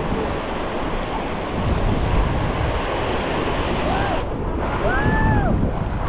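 Small ocean waves breaking and washing up the sand, with wind rumbling on the microphone. A few brief high voices call out about four to five seconds in.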